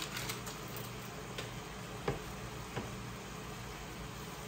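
Kitchen handling sounds: a few light clicks and knocks from a plastic tub and utensils being handled, the sharpest about two seconds in, over a steady low hum.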